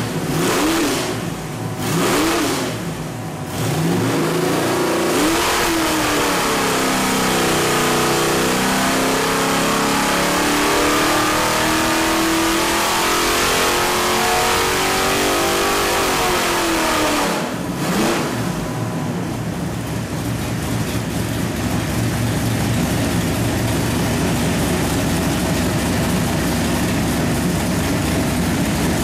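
A carbureted 383 cubic-inch small-block Chevy stroker V8 on an engine dyno is blipped through a few quick revs, then held at high revs for about ten seconds. About seventeen seconds in it drops back and settles into a steady idle.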